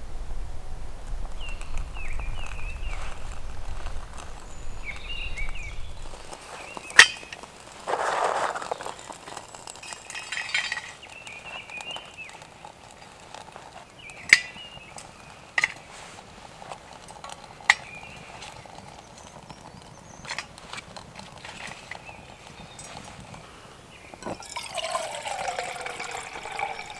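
Liquid being poured, with a few sharp metallic clinks of camp cookware, as a hot drink is made.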